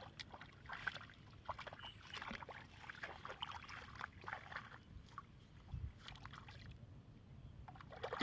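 Light, irregular splashing and sloshing of water, as of hands, nets or a paddle moving in shallow water.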